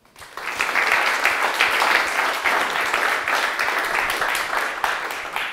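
Audience applauding, the clapping building up quickly at the start and dying away near the end.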